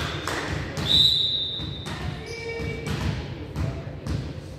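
A ball bouncing and thudding on a hard court during a game, in irregular knocks. About a second in comes a loud high steady tone lasting about a second.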